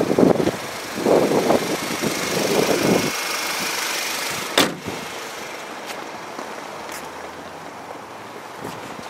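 Wind buffeting the microphone in loud gusts, then the car's hood slammed shut with one sharp bang about four and a half seconds in, followed by a few faint knocks.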